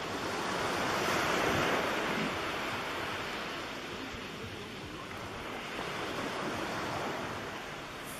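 Steady rushing noise, like wind or surf, swelling about a second in and then slowly easing off.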